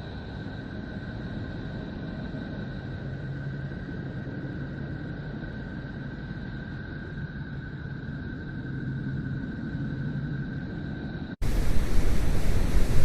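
Sonified space recording: a steady rushing noise with a low hum and two faint, thin high whistling tones. About eleven seconds in it cuts off suddenly and gives way to a much louder rushing noise.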